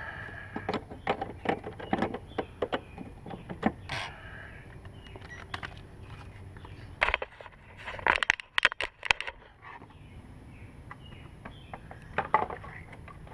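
Irregular clinks, clicks and knocks of hand tools and metal parts being worked on a lawn mower's self-propel drive, in three bursts with short lulls between.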